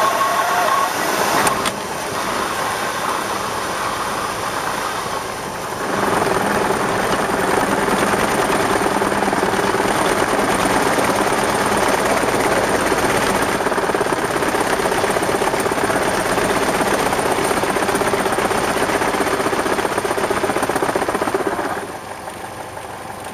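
Cessna 172 Skyhawk's engine and propeller turning at low power during the landing rollout, with the nose wheel shimmying: a loud shaking vibration through the airframe. It gets louder about six seconds in and drops off shortly before the end.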